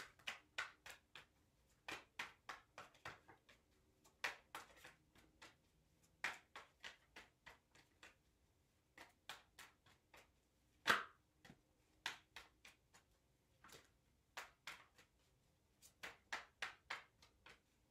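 A tarot deck being shuffled overhand: runs of faint, quick card slaps and flicks with short pauses between them, and one sharper snap about eleven seconds in.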